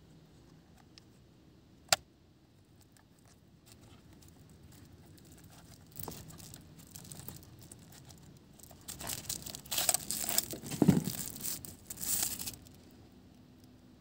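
Hands handling a hard plastic knife holster with nylon webbing straps: a sharp click about two seconds in, then scraping and rustling that grows louder from about nine seconds, with a heavier knock near eleven seconds, as the small emergency knife is drawn out of the holster.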